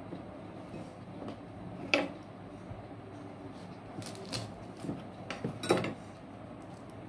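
Kitchen knife slicing dragon fruit on a wooden cutting board: scattered sharp taps and knocks of the blade and fruit against the board, the loudest about two seconds in and just before six seconds.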